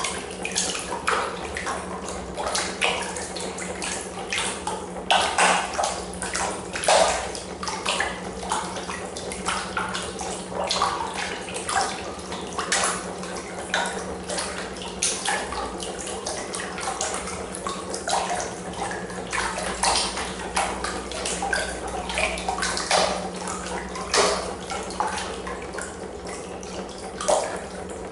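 Water splashing and churning in a plastic tub, stirred up by a homemade pulse drive: a neodymium magnet piston driven by an electromagnet coil at about four strokes a second. Irregular splashes rise out of a steady wash, with a steady low hum underneath.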